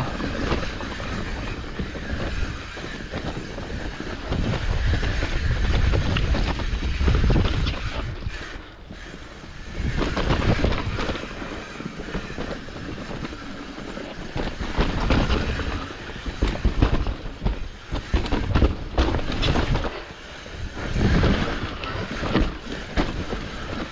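Hardtail mountain bike riding a rough dirt trail: continuous rolling rumble with rapid rattling and clattering over bumps, easing briefly twice.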